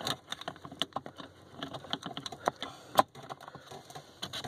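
Plastic blower fan wheel being worked by hand onto a Volvo 240 blower motor shaft: scattered small clicks and scrapes as it is pushed on and turned to find its key, with one sharper click about three seconds in.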